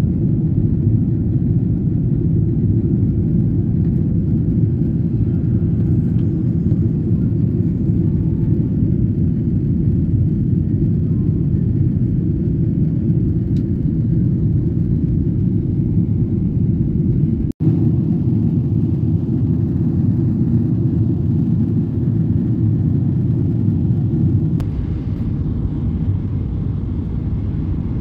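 Jet airliner cabin noise heard from a window seat: a steady low rumble of engines and airflow. It cuts out for an instant about two-thirds of the way through.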